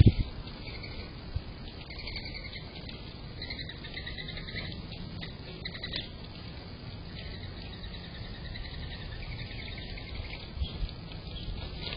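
Small birds chirping in short, repeated high calls, over a steady low rumble.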